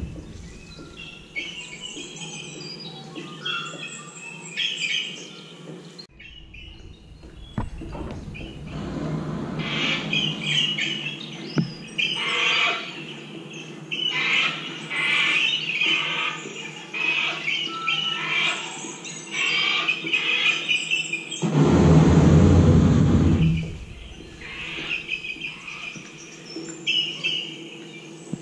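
Recorded birdsong, many short chirps and calls, played back through loudspeakers. It cuts out briefly about six seconds in, and a loud rushing noise swells for about two seconds near the end.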